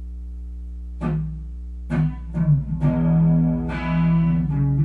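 Playback of a poor home recording of plucked guitar, just normalized: about a second of steady low hum and noise, then guitar notes over it. The hum is the background noise raised by the normalizing.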